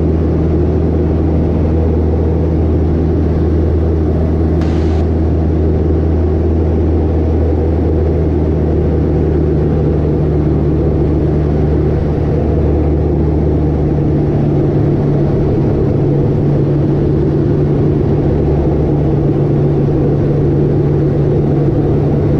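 Piper Cherokee 180's four-cylinder Lycoming engine and propeller droning steadily in flight, heard from inside the cabin. The low engine tone shifts slightly about two-thirds of the way through.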